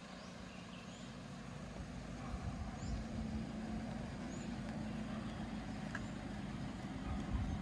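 A motor vehicle's engine running, a low drone that grows louder over the first three seconds and then holds steady.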